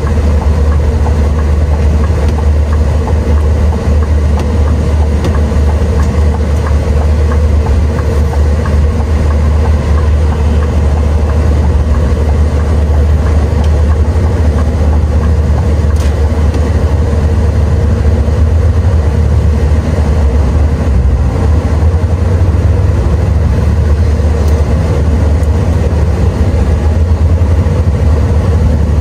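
Scania V8 truck engine running steadily while the truck is driven on the road: a constant low drone with road noise, unchanging throughout.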